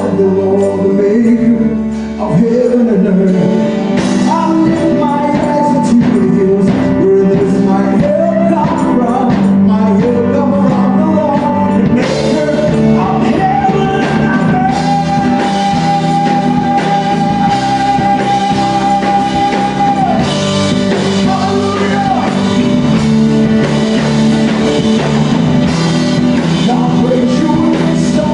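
Gospel band music with guitar, playing continuously, with one long held note in the middle.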